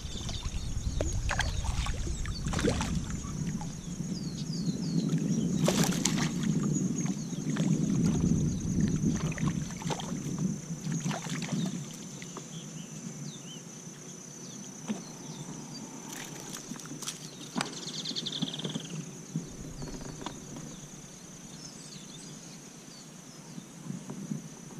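A small snook being played and reeled in beside a plastic kayak: water sloshing and splashing as the fish thrashes at the surface, with scattered clicks and knocks from the rod, reel and hull, louder in the first half. A steady high hum runs underneath.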